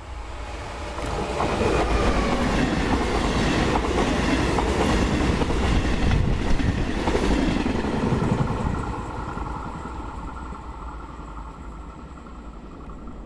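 Regional passenger train with double-deck coaches, hauled by an E464 electric locomotive, passing close by at speed: wheels running on the rails. It swells about a second in, stays loud for several seconds, then fades away over the last few seconds.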